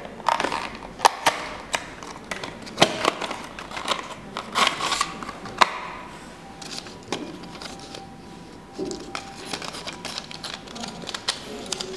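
Small cardboard box and its plastic insert being handled and slid out: short scrapes and a series of sharp clicks and taps, busiest in the first six seconds, sparser afterwards.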